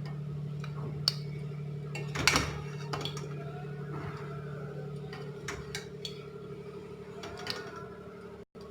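A spoon clinking and scraping against a cooking pan and a serving bowl as puffed-rice poha is served out. The sharp clinks are scattered, with the loudest about two seconds in. Under them runs a low, steady hum.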